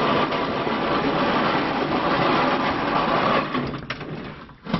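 Steady mechanical rumbling and rattling that dies away about three and a half seconds in, followed by a single sharp knock near the end.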